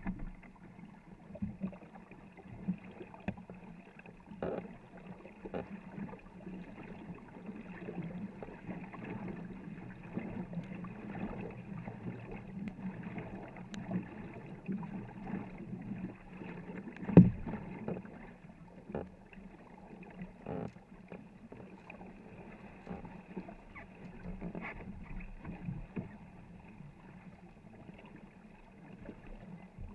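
Paddles stroking and splashing as a crew paddles a 24-foot war canoe, water rushing along the hull, with scattered knocks of wood and one much louder knock a little past halfway.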